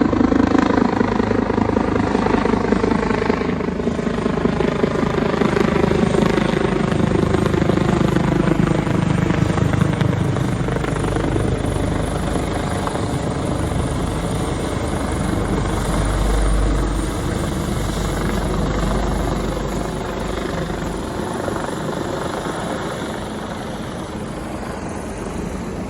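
Medical transport helicopter flying overhead: rotor blade chop with a whining tone. The whine slowly falls in pitch and the sound gradually fades.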